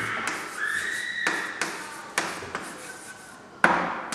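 Chalk tapping and scraping on a blackboard while writing: a run of sharp taps, a short high squeak about half a second in, and a louder knock near the end.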